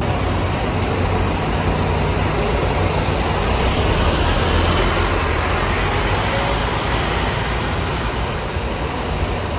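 Scania K230UB single-deck bus with its Scania DC9 nine-litre diesel engine pulling away from a standstill and driving off, the engine running with a steady low note.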